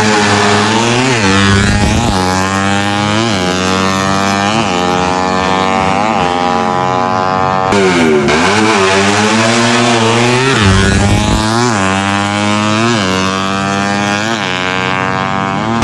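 Drag-racing motorcycle engine revved over and over, its pitch swooping up and dropping back every second or two, with one longer climb in the middle, over a steady low hum.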